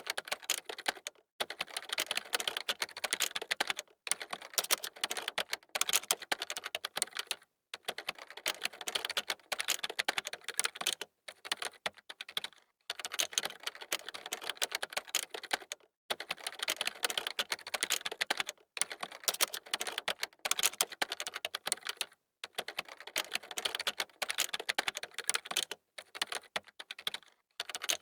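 Computer keyboard being typed on quickly, dense key clicks in runs of a few seconds broken by brief pauses.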